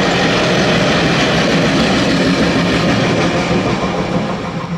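Freight train rolling on the rails: a steady rush of wheel and wagon noise that fades out near the end.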